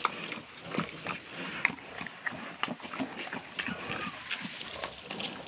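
Pigs grunting softly amid many small clicks and rustles as newborn piglets root and eat in loose feed on the pen floor.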